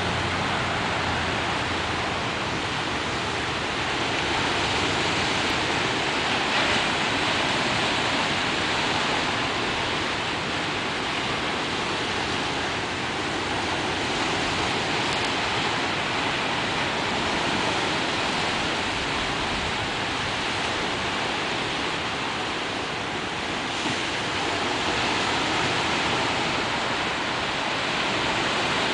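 Ocean surf breaking and washing over shoreline rocks: a steady rush of foaming water that swells and eases slightly.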